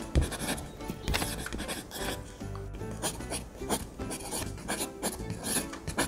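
Paper being rubbed and handled in a run of short scraping strokes, over background music.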